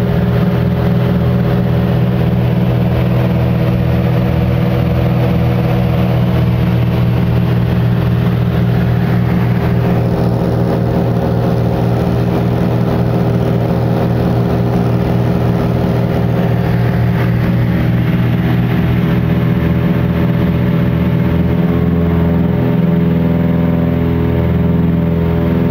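Cessna 310's twin six-cylinder piston engines and propellers running at a steady drone, with a slow wavering beat coming in near the end.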